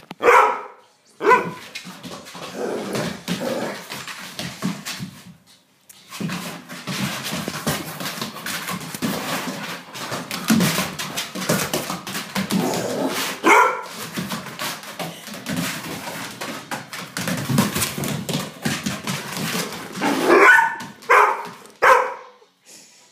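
Large dog barking: sharp single barks at the start, one in the middle and a quick run of barks near the end, with a long stretch of rough, scuffling noise in between.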